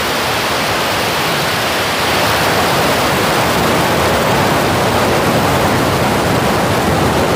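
SpaceX Starship SN10's three Raptor engines firing just after liftoff: a loud, steady rush of noise that swells slightly about two seconds in.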